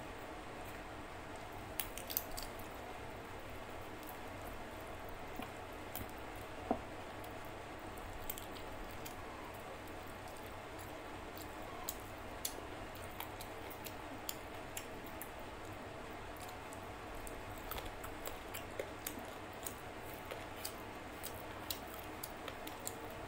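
Eating with the fingers: rice and curry squished and mixed on a plate and chewed, with scattered small sharp clicks over a steady low background hum.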